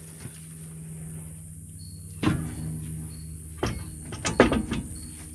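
A few sharp knocks and clanks, the first a little over two seconds in and a quick cluster near the end, over a steady low hum.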